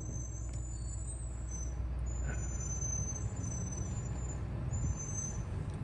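Steady low rumble of vehicle engines idling, with short, thin, high whistling tones coming and going over it.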